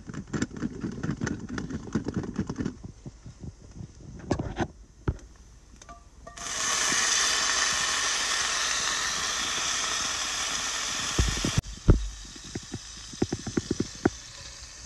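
Water poured from a stainless-steel bottle into a cast-iron Dutch oven of parboiling potatoes, a steady splashing hiss for about five seconds that starts and stops abruptly. Before it comes a run of crackling and clicking, and after it a couple of low knocks.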